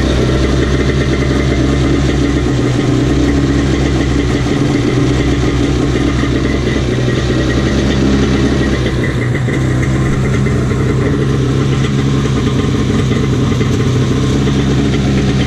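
Yamaha WaveRunner jet ski engine idling steadily out of the water, with a garden hose feeding fresh water through it to flush out the salt.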